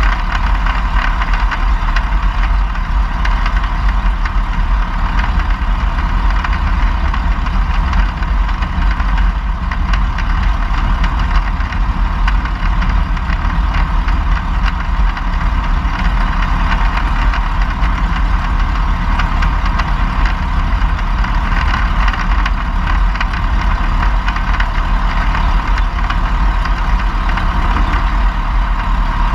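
Van's RV-4's piston engine and propeller running steadily at flying power, heard from inside the cockpit as a loud, unbroken drone.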